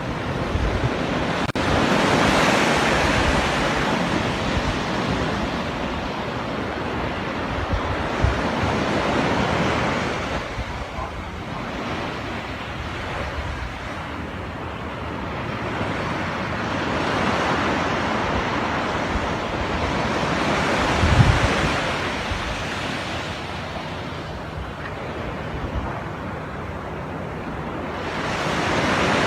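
Ocean waves breaking and washing ashore, swelling and fading every several seconds, with wind buffeting the microphone at times.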